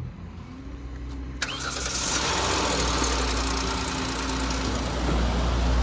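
2012 Hyundai Azera's GDi engine cranked by the starter, catching about a second and a half in and settling into a steady idle. It starts on a freshly fitted replacement battery that is not the correct fitment for the car.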